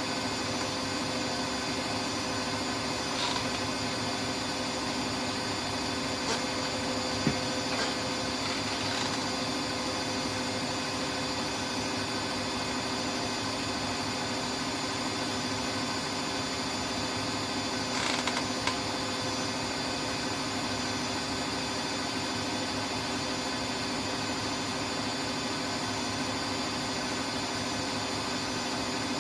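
Siemens Siwamat iQ 716 washing machine running, a steady motor hum with a few faint clicks.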